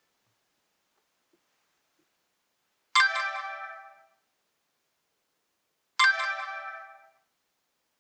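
Nokia E63 ringtone: a bright chime of several notes that starts suddenly and fades over about a second. It sounds about three seconds in and again three seconds later, repeating on an even three-second cycle.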